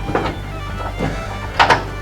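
Background music: a steady low bass tone with a few sharp percussive hits.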